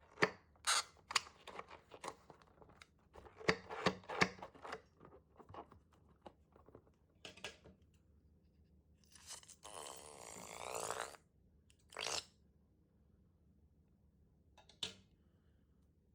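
Crunching and crackling handling sounds while slime is made with balloons and glitter: a cluster of sharp crackles in the first few seconds, then a rasping sound with a wavering squeal about ten seconds in, and two more short crackles later.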